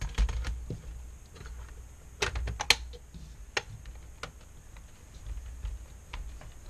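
Irregular light clicks and taps of an LCD panel and its sheet-metal frame being handled and pressed together by hand. The sharpest clicks come a little past two seconds in and again past three and a half seconds.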